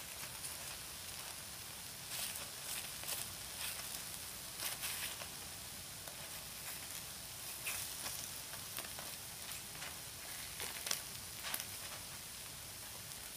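Takoyaki batter sizzling in the hot wells of a Nichinen takoyaki plate, with irregular scrapes and taps as bamboo skewers prod and turn the balls against the plate.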